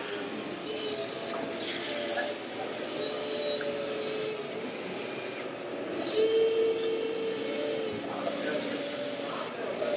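Scale RC Volvo crawler excavator working its boom and bucket: a steady whine from its drive that shifts in pitch, stops and restarts, and is loudest about six seconds in. Two brief hissing rushes come about two seconds in and near the end.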